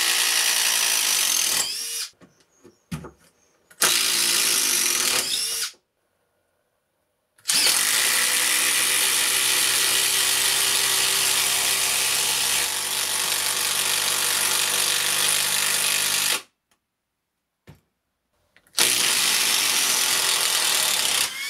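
18-volt cordless impact driver running in four bursts, driving screws in and backing them out in forward and reverse. The third run lasts about nine seconds; the other three last about two seconds each.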